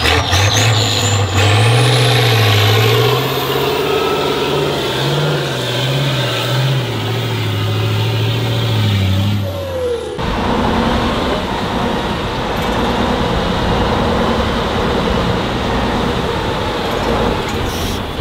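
Off-road trial truck engine working hard, its pitch rising and falling with the throttle, with a high whine climbing steadily in pitch. About ten seconds in the sound changes abruptly to a rougher, lower engine noise.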